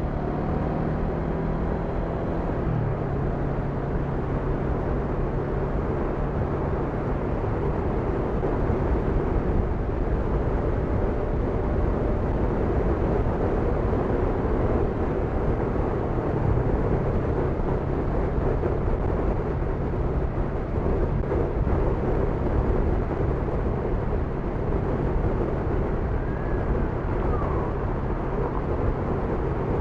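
Honda NX500's parallel-twin engine running at a steady cruise under way, with wind rush. The engine note shifts slightly about three seconds in, then holds steady.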